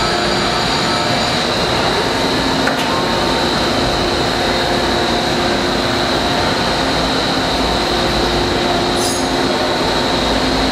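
Steady hum and whir of running machinery, with a constant high whine over a low drone, at the rear of a powered-up vertical machining center. A short high hiss is heard about nine seconds in.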